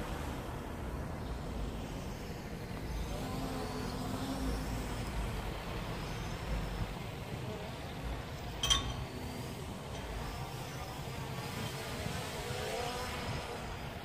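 Steady low rumble of wind and street traffic, with the faint, wavering whine of a Hubsan H501S quadcopter's brushless motors in flight overhead. A single short, sharp click comes a little under nine seconds in.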